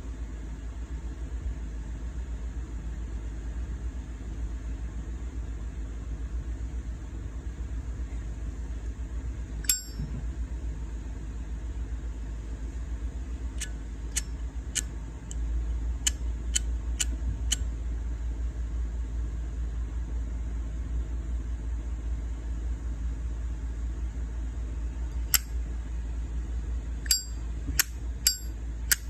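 Brass Zippo lighter's lid being flicked open and snapped shut, giving sharp ringing metallic clicks: one about a third of the way in, a quick run of about seven a little past the middle, and another quick run near the end. A steady low hum runs underneath.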